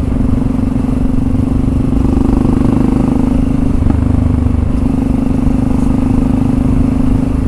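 Yamaha XT660R's single-cylinder four-stroke engine running at a steady cruise, heard from the rider's helmet.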